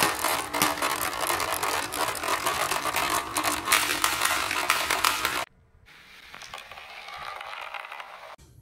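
Many marbles clattering and clicking rapidly as they tumble down a homemade white board track full of angled baffles. About five and a half seconds in the sound cuts to a much quieter, steady rolling of marbles along a plastic channel.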